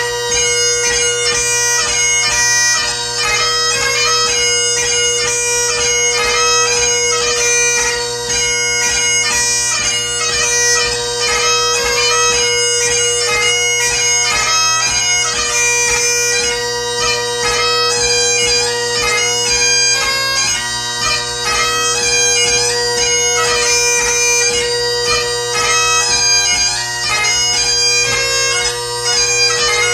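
Great Highland bagpipe played solo: the drones sound one steady, unbroken chord under a fast-moving chanter melody.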